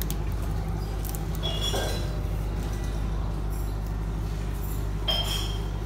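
A couple of light clinks as the detached motorcycle headlight unit is handled, about one and a half seconds in and again near the end, over a steady low mechanical hum.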